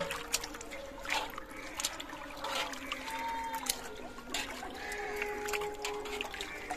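Hands swishing and rubbing small green pehta fruits in a wide aluminium basin of water, with repeated small splashes and trickling water.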